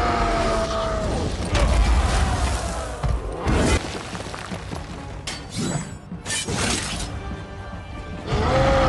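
Action-film fight soundtrack: dramatic music under heavy impacts, with several loud crashes and thuds spread through, the sound of blows landing and bodies hitting the arena floor.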